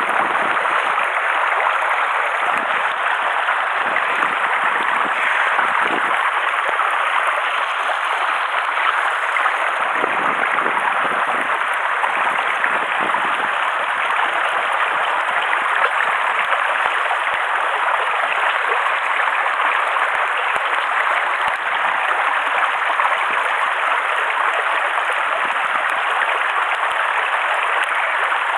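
Steady rushing of a mountain stream in the rain, an even hiss of water. Low gusts of wind buffet the microphone now and then, mostly in the first half.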